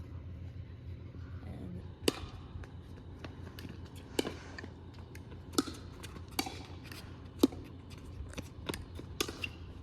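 Pickleball rally: paddles striking the hollow plastic ball, with sharp pocks about every second or so, the loudest around two seconds in and seven and a half seconds in.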